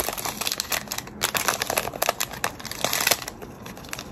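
Small clear plastic jewellery packet and its card crinkling and rustling as it is handled and opened by hand, a quick run of sharp crackles that eases off near the end.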